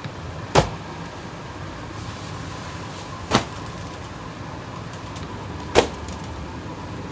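Three sharp knocks, about two and a half seconds apart, over a steady background hum with a faint constant tone.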